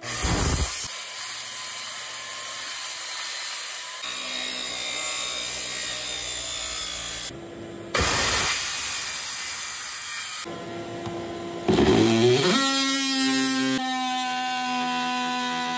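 Ridgid circular saw making plunge cuts into a carpeted boat deck, in several loud runs with short pauses between. About twelve seconds in, a DeWalt oscillating multi-tool spins up with a rising whine and then cuts with a steady buzz.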